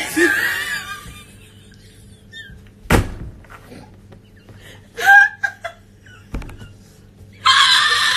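Stifled, high-pitched squealing laughter in short bursts, with one sharp knock about three seconds in and a low thud a little after six seconds.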